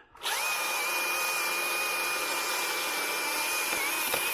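Chainsaw revving up and held at full throttle, cutting, with a steady high whine; it stops suddenly near the end.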